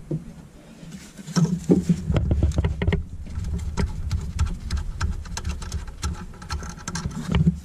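Gloved hand working at the EGR valve of a 2.0 CDTI diesel engine in a cramped engine bay: quiet for about the first second, then a dense run of irregular clicks and knocks with rubbing against the surrounding hoses and wiring.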